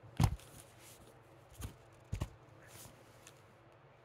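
Three soft knocks with faint rustling, the first and loudest just after the start: handling noise near the microphone.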